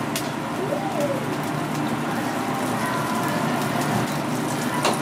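Yakisoba noodles and beef sizzling on a hot teppanyaki iron griddle, with a couple of sharp pops, over a steady murmur of restaurant voices.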